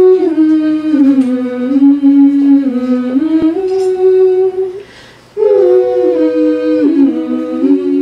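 Women's voices from an a cappella group singing held chords in close harmony, the notes stepping up and down in pitch. They break off briefly about five seconds in, then come back.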